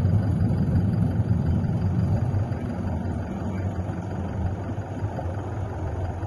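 Steady low rumble, slowly easing off, with no distinct blasts.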